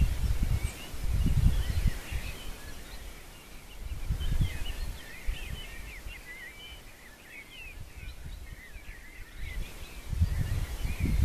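Songbirds chirping and singing all through, many short quick calls. Low rumbles of wind on the microphone come in gusts over the first two seconds, about four seconds in, and near the end.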